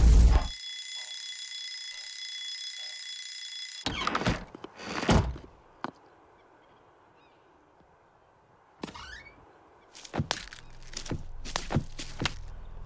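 Cartoon sound effects: a steady high ringing tone for about three seconds, then a couple of heavy thuds. After a quiet stretch comes a run of sharp knocks on a wooden hen-house door near the end.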